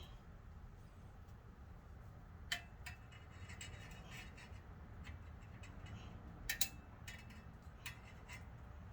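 Scattered light clicks and taps of brake caliper parts and tools being handled during a front brake pad change, with a sharp one about a third of the way in and a quick double click past the middle, over a faint steady low hum.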